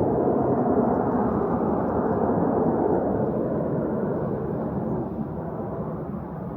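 Jet airliner passing low on its landing approach: a steady rumbling roar that fades slowly toward the end.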